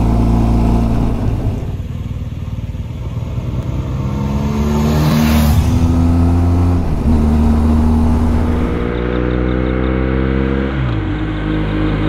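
Motorcycle engine running under way with wind rush, its pitch stepping up and down with the throttle and gears. There is a brief rush of noise about five seconds in, and the pitch falls near the end as the bike slows.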